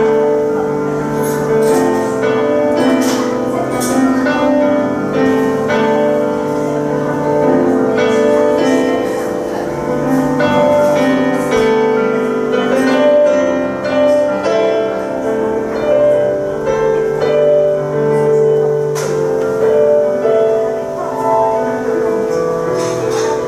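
Grand piano improvisation: held chords changing every second or two over a lower bass line.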